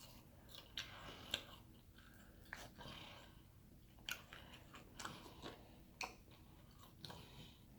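Close-up eating sounds: a person chewing food with faint, scattered mouth clicks and smacks, about a dozen through the stretch.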